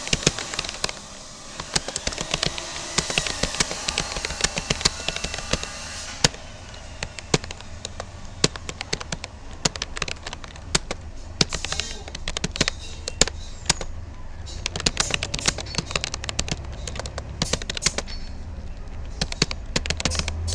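Typing on a Rapoo computer keyboard: an irregular, fast stream of key clicks, several a second, with a low rumble underneath that grows toward the end.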